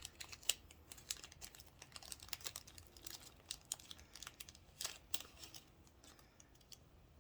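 Soft crinkling and light clicking of small plastic packaging being handled, in scattered short ticks that thin out near the end.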